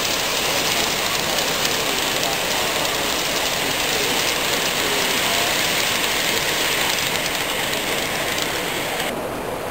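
OO gauge model train running along the layout track, its wheels and motor heard over a steady hiss of exhibition-hall noise. The hiss drops off abruptly near the end.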